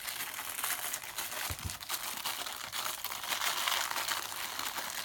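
Plastic packaging crinkling steadily as it is handled and pulled open.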